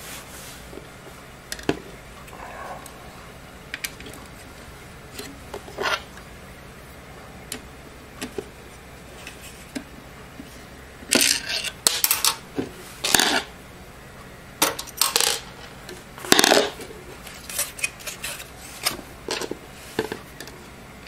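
A metal 5.25-inch drive bracket and its mounting screws being handled: scattered light metal clicks and clinks, with a run of louder short rattles and scrapes in the middle.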